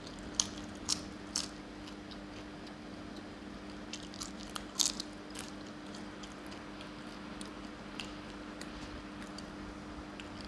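Crisp papad being bitten and chewed with loud crunches: three sharp ones in the first second and a half, then another cluster about four to five seconds in, followed by a few faint crackles.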